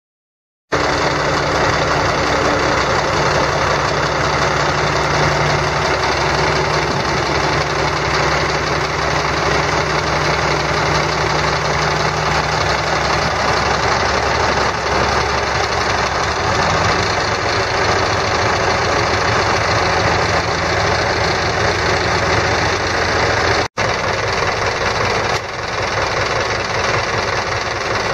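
Caterpillar 3306 10.5 L inline-six diesel engine of a Ford LT9000 dump truck running steadily and loudly. Its note shifts a little past halfway through, and the sound breaks off for an instant near the end.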